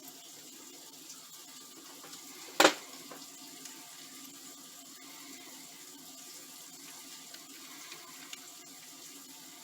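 Faint handling of a plastic extension-cord plug and small tools, a few light ticks over a low steady hiss, with one sharp knock about two and a half seconds in.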